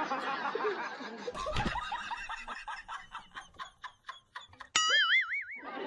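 Snickering laughter, a quick run of short breathy 'ha's that slows down, followed near the end by a loud, high wavering tone with heavy vibrato lasting under a second.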